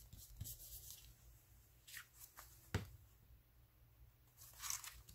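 Paper rustling as hands press down and handle a collaged paper envelope, in several short bursts, with one sharp tap a little before the middle that is the loudest sound.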